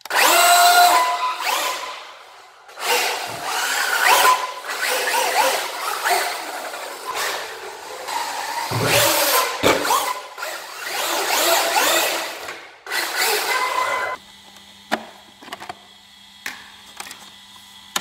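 Traxxas UDR RC truck running on 8S, its brushless motor whining up and down in pitch as it accelerates and slows on a concrete floor. About fourteen seconds in the running stops, leaving a few quiet clicks as hands work at the battery compartment.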